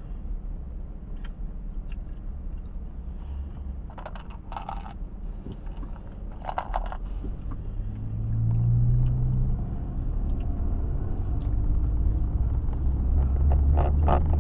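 Engine and road rumble inside a car's cabin in stop-and-go highway traffic, getting louder about eight seconds in as the car pulls away and picks up speed. Short crackly bursts stand out three times: around four seconds, around six and a half seconds, and near the end.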